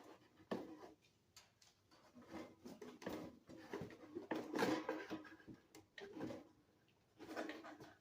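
Hands handling the bird feeder's wiring and circuit board: irregular small clicks, knocks and rustles of cables and plastic connectors, busiest around the middle.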